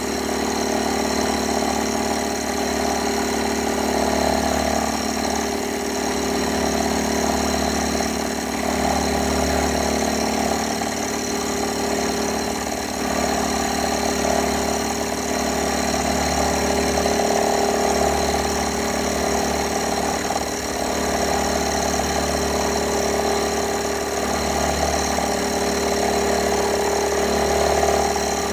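Metalworking machine tool running steadily, its motor giving a constant hum with several steady tones.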